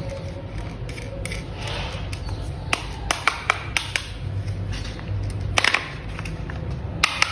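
Hard plastic toy parts clicking and snapping as pieces are handled and fitted together: a quick run of sharp clicks a few seconds in, another cluster a little later and two more near the end, over a steady low hum.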